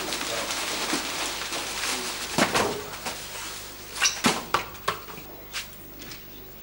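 Large plastic bag rustling and crinkling as it is shaken out overhead, with sharp crackles about two and a half and four seconds in, dying down near the end.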